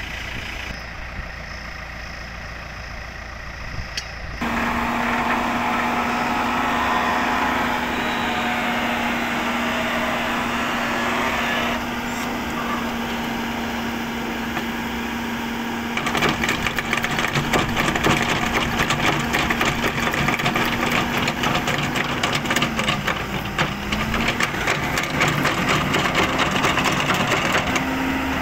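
Ajax self-loading concrete mixer's engine running, stepping up about four seconds in to a higher, steady whine as the hydraulic loader bucket is raised. The whine holds for most of the rest, dipping briefly once, and a dense rapid rattle joins it from about halfway through.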